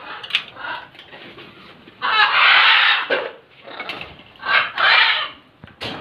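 Blue-and-gold macaws squawking: loud, harsh calls, the longest about a second long starting about two seconds in, another around five seconds, with shorter squawks between.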